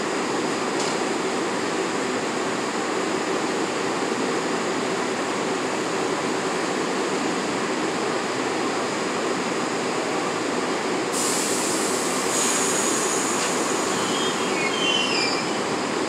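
An R62A subway train rolls slowly along an elevated track with a steady rumble of wheels on rail. A high hiss joins about 11 seconds in, and faint wheel squeals follow a few seconds later.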